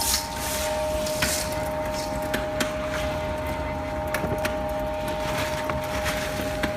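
Small single-screw palm kernel oil press running with a steady whine, with scattered sharp clicks and rattles of hard palm kernels against metal.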